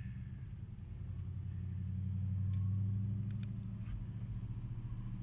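Hearse engine running steadily, heard from inside the cabin. The low note grows louder for a moment about two to three seconds in, then eases back.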